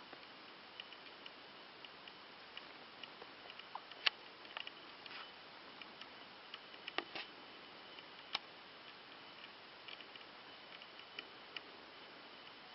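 Quiet woodland ambience: a faint steady hiss broken by scattered small clicks and ticks, the sharpest about four, seven and eight seconds in.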